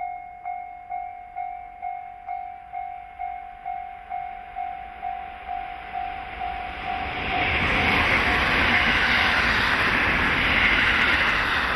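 An electronic railway level-crossing bell rings about twice a second. From about seven seconds in, a JR Hokkaido electric commuter train passes, its wheel and running noise building up and covering the bell.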